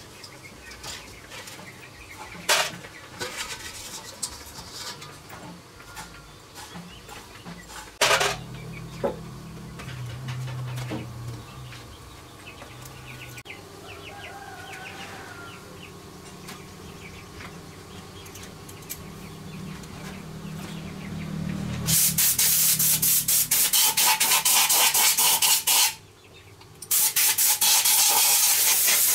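Small metal starter parts being rubbed and clinked while washed in a metal bowl, with a few sharp knocks. About three-quarters of the way through, a compressed-air blow gun starts hissing loudly in long blasts, with a short break of about a second near the end.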